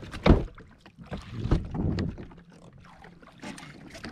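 A sharp knock about a third of a second in, then scattered knocks and handling sounds on a jet ski drifting at sea, with water lapping against the hull.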